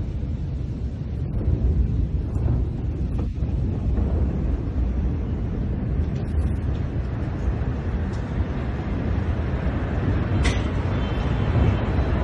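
Fast-flowing floodwater rushing through a street: a loud, steady rush of water, with a short sharp knock about ten seconds in.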